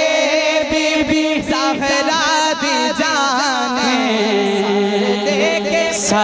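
A man's voice sings a long, ornamented phrase of a Punjabi naat without clear words, the melody winding up and down over held lower notes that step down about four seconds in.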